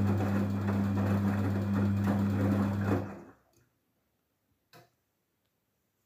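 Daewoo DWD-FT1013 front-loading washing machine on its rinse cycle: the drum motor hums steadily as the wet laundry churns. About three seconds in, the machine stops and the sound dies away quickly, with one faint click a little later.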